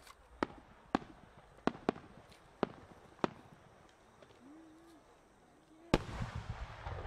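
Fireworks over a wide open sky: a string of sharp cracks, each half a second to a second apart, through the first three and a half seconds. About six seconds in comes a much louder deep boom, the burst of a large aerial shell, which rolls on as a long low rumble.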